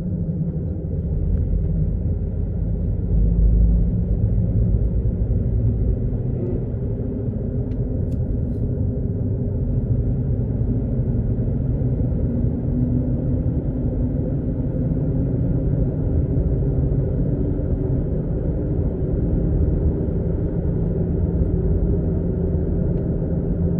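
Steady low rumble from a Toyota RAV4, the abnormal noise (異音) the owner is recording, slightly louder around three to four seconds in.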